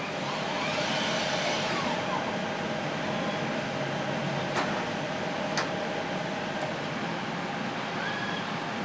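Robotic plate-handling arms of a Caliper Staccato lab automation system moving: their motors whine up in pitch, hold and wind back down with each move, over a steady hum of the equipment. A couple of sharp clicks come midway.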